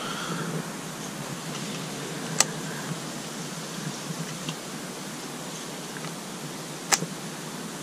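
Steady hiss of background noise, broken by two sharp clicks, one about two and a half seconds in and a louder one near the end.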